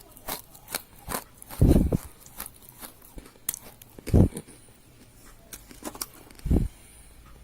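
Dry rose clay being crumbled, with sharp crackling snaps and three heavier, deeper crunches about two and a half seconds apart.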